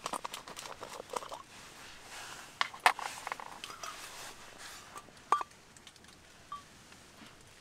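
Light clicks and short metallic clinks with brief ringing tones, scattered: a cluster in the first second and a half, the loudest about three seconds in, and a sharp one about five seconds in.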